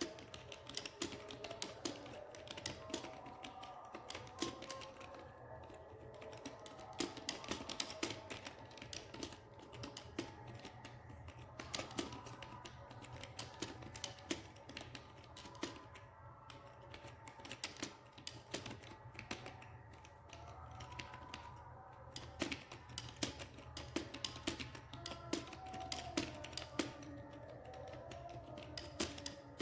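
Fast, uneven typing on a computer keyboard, several key clicks a second with brief pauses, over background music.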